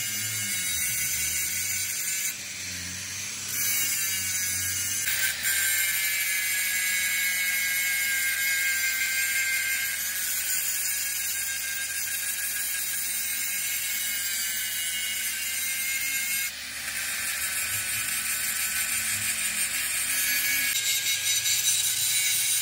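Angle grinder grinding steel on a truck front axle beam: a steady, high-pitched grinding whine that shifts abruptly a few times.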